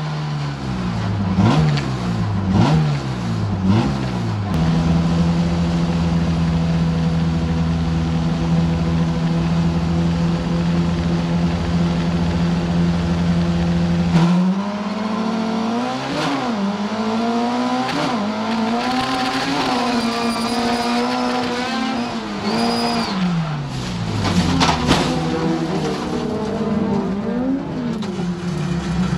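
Rallycross car's engine heard from inside the cabin while racing. The revs rise and fall with quick gear changes in the first few seconds, then hold steady at high revs along a straight for about ten seconds, then swing up and down repeatedly through the corners.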